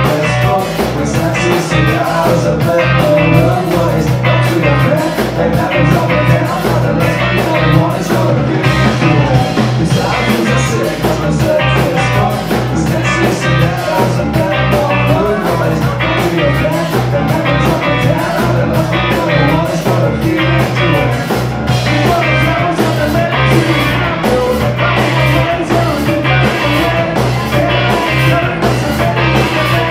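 Live rock band playing: electric guitar, bass guitar and drums with a steady beat, with singing.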